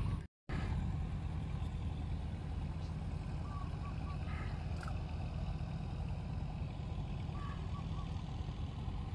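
A steady low rumble, with a few faint short chirps.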